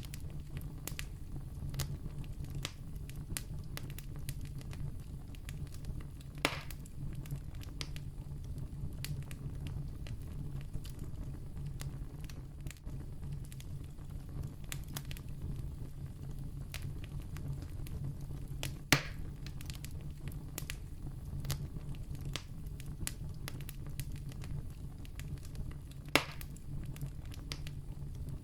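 Wood campfire burning with a steady low rumble and frequent small crackles, with three loud pops about 6, 19 and 26 seconds in.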